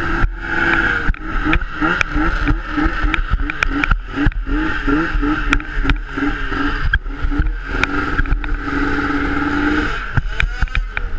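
600-class racing snowmobile engine running at low revs, its note wavering up and down as the sled is ridden slowly over sand, with frequent sharp knocks and rattles. Near the end the note holds steady for a couple of seconds, then drops away.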